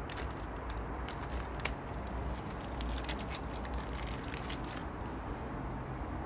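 Clear plastic bag crinkling and crackling as a new in-tank fuel pump is unwrapped by hand, a dense run of sharp crackles that dies away near the end, over a low steady rumble.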